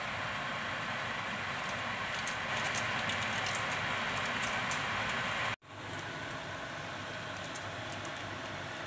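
Pot of instant noodles cooking on a gas stove: a steady hiss with faint crackling pops. About five and a half seconds in it cuts off abruptly, and a quieter steady hiss follows.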